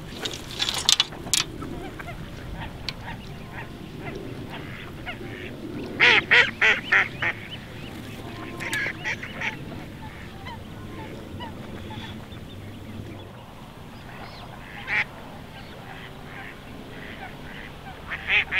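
Waterfowl calling from the water: short runs of rapid honking calls, the loudest a run of about six calls about six seconds in, with more near the end.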